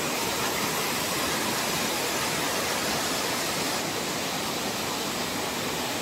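Waterfall cascading over boulders into a rocky stream: a steady, even rush of falling water.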